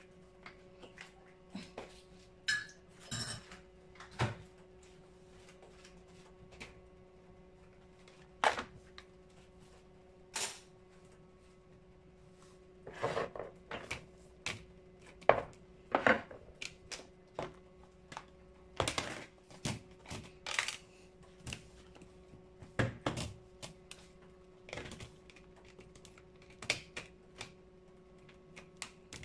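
Condiment dispenser bottles being handled and set down on a tiled surface: scattered clinks, knocks and clicks, some in quick clusters, with quiet gaps between.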